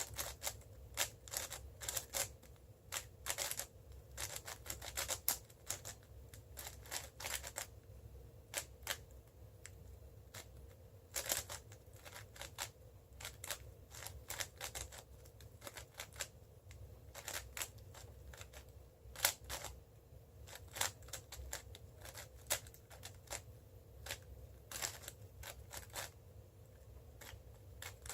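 Cubicle Labs WuShuang M 5x5 speedcube being turned fast by hand: a run of irregular, quick plastic clicks and clacks as its layers snap round, some in quick flurries, with short gaps between.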